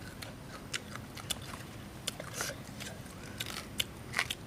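Close-up eating sounds: two people biting and chewing pieces of green banana, with many short, sharp mouth clicks and crunches at an irregular pace.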